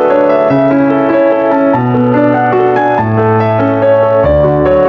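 Background piano music: a slow, gentle melody over held bass notes that change about every second and a quarter.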